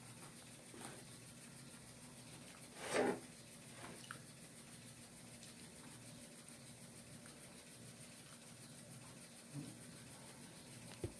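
Quiet eating sounds from chewing and pulling apart fried chicken by hand, with one brief louder noisy sound about three seconds in and a sharp click near the end.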